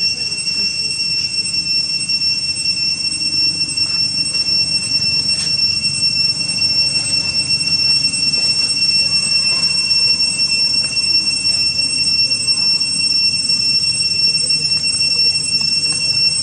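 Cicadas in the surrounding forest droning a steady, unbroken high-pitched whine, over a low background rumble.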